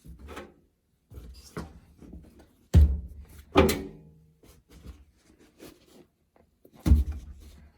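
Knocks against a washing machine: three loud hollow thuds, each with a brief ring, about three seconds in, just after that, and near the end, with lighter knocks between them.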